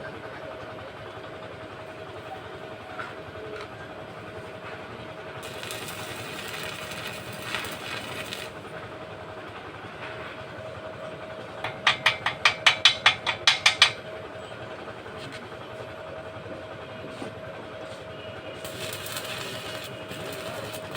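Arc welding: a steady hum with two stretches of crackling hiss from the arc, and near the middle a fast run of about ten sharp knocks, the loudest sound.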